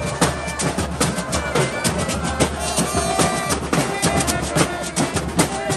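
Samba-style music: fast, dense drumming and percussion with a melody over it.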